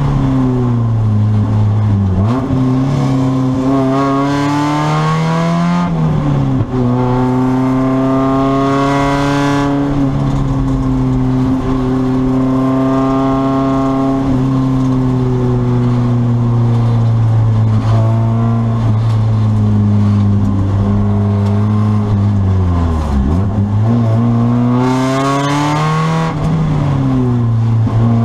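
Spec Miata's four-cylinder engine heard from inside the race car's cabin, running hard under racing load, its pitch climbing and dropping at each gear change. It holds a high steady pitch through the middle, then falls sharply about two-thirds of the way through and climbs again.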